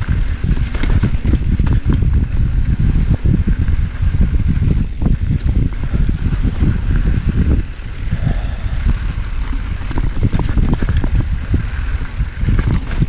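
Mountain bike descending a rough dirt singletrack: tyres rumbling over dirt and rocks, with frequent rattles and knocks from the bike, and wind buffeting the microphone.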